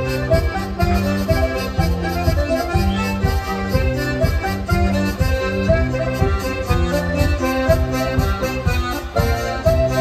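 Traditional folk dance music: a lively running melody over a bass that alternates between notes on a steady beat.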